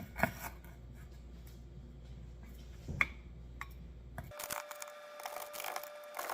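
A few light clicks and taps from kitchenware being handled, over a low hum. About four seconds in, the background changes abruptly to a steady higher hum with quick small clicks and rattles.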